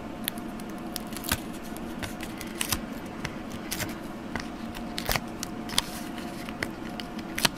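Card and paper being handled: scattered light clicks, ticks and rustles as fingers pick at a die-cut card piece backed with foam adhesive squares, over a faint steady hum.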